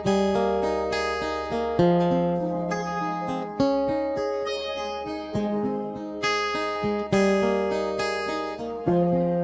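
Background music played on acoustic guitar, plucked and strummed chords ringing out and fading, a new chord struck about every one to two seconds.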